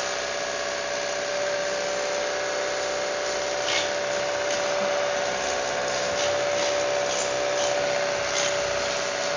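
Battery-powered motor running steadily at high speed, a constant whine over an even rushing hiss of air or spray, with a few faint clicks.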